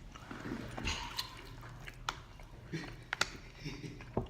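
Close-up eating sounds: chewing, lip smacks and wet sticky clicks of someone eating saucy fried chicken and sucking sauce off, in a few scattered short bursts.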